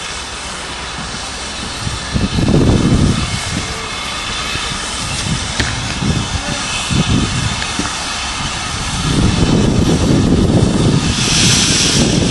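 Steam locomotive working as it approaches, under heavy wind buffeting on the microphone, with a burst of steam hiss near the end.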